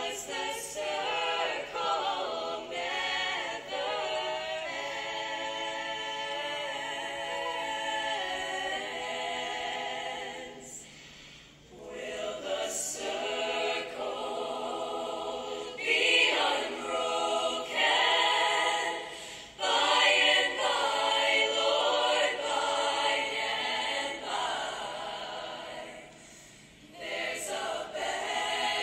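A choir singing a cappella in sustained chords, phrase after phrase, with short breaks between phrases about eleven and twenty-six seconds in.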